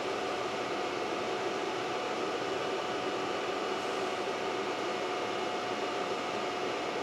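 Steady whir of a 3D printer's small cooling fans running, with a few faint steady tones in it.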